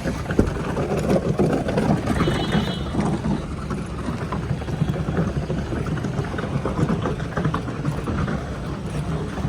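Vehicle running noise: a steady low rumble with scattered knocks and a brief high tone at about two seconds in.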